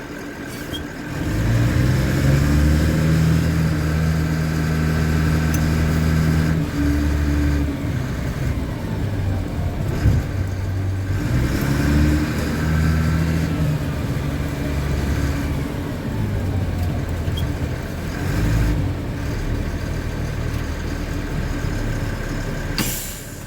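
LMTV truck's diesel engine pulling the truck away: its pitch climbs and holds, eases off around eight seconds in, then climbs and holds again. A short sharp noise comes near the end.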